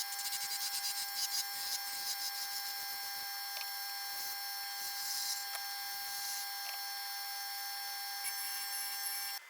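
A small electric motor running with a steady high whine and hiss, stopping abruptly near the end.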